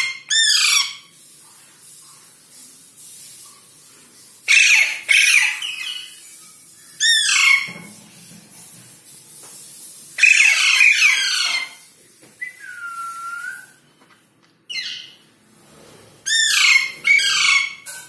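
Parrots calling in about six bursts of shrill, downward-sliding squawks, several calls in quick succession each time, with quieter gaps between. A lower, shorter whistle comes about twelve and a half seconds in.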